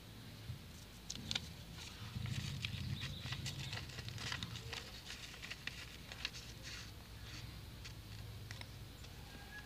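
A sheet of lined notebook paper being folded and creased by hand: rustling and crackling crinkles, busiest in the middle.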